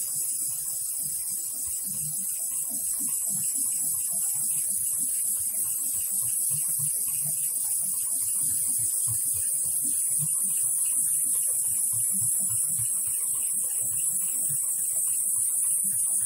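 HighTex 71008S heavy-duty pattern sewing machine stitching through thick nylon webbing, a fast run of low thuds from the needle, under a steady hiss of compressed air from the needle-cooler nozzle blowing on the needle.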